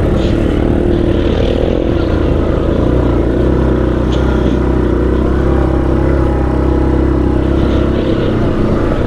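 ATV engine running steadily while riding over a rough trail; its note grows stronger about three seconds in and eases off near the end.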